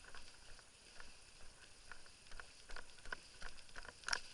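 Irregular light crunches and ticks, two or three a second, like footsteps on debris as airsoft players move. A sharper click comes about four seconds in.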